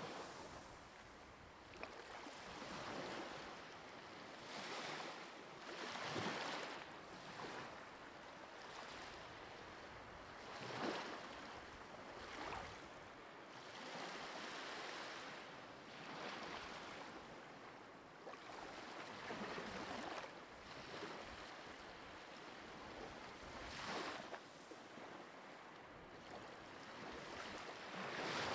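Ocean waves washing on a shore: soft surges of surf that swell and fade irregularly every few seconds.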